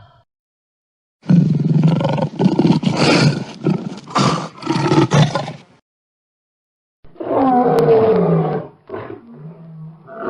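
Lion attack roars: a run of quick, snarling roar pulses, a pause, then a longer roar that bends in pitch and trails off into a low growl.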